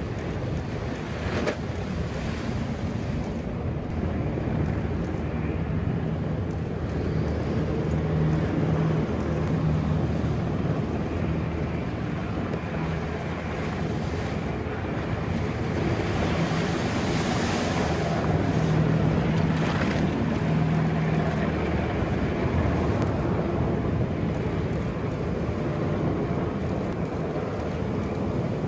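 Riverine Command Boat's twin diesel engines and waterjets running at speed, a steady low drone under the rushing hiss and splash of its wake and spray. Wind buffets the microphone, and the splashing swells for a moment a little past halfway.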